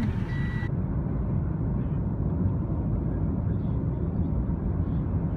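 Steady low rumble of a car driving at speed, road and engine noise heard from inside the cabin. At the very start a last reversing-alarm beep sounds before the rumble alone continues.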